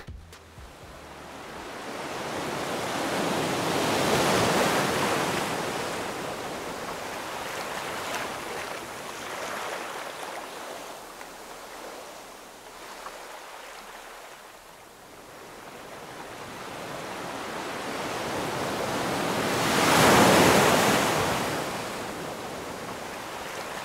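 Ocean surf: a rushing wash of noise swells and recedes in two slow waves, the louder one about twenty seconds in.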